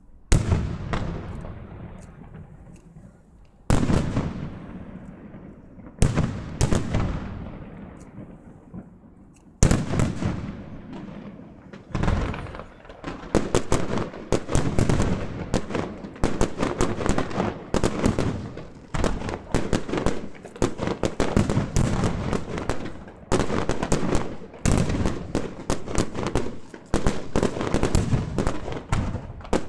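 Aerial fireworks bursting: single shells bang a few seconds apart, each followed by a long rumbling echo that dies away. About twelve seconds in, a rapid barrage of many overlapping bangs and crackling takes over and keeps going.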